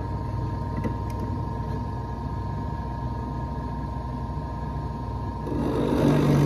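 Electric drill running steadily with a constant motor whine while drilling through wood. About five and a half seconds in, it gets louder and deeper-toned.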